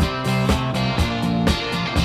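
Background music with a steady beat, about two strong beats a second, over sustained pitched notes.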